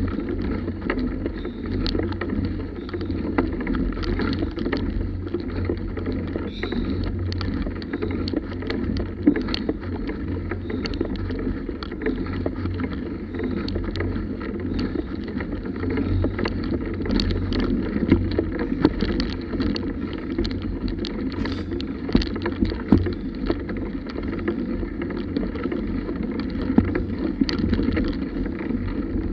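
Bicycle rolling slowly over a rough dirt trail: a steady low rumble of tyres and mount vibration, with frequent small rattles and knocks.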